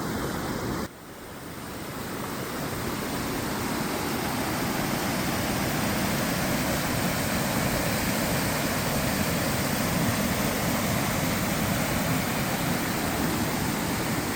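Rushing floodwater, a steady loud rush. It briefly drops about a second in, then builds over a few seconds to a constant level.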